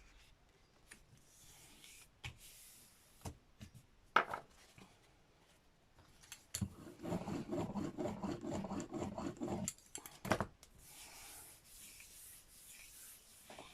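Rubbing over paper laid on an inked gel printing plate to pull a print: a run of quick, even rubbing strokes for about three seconds midway, with scattered light taps and a sharper knock just after.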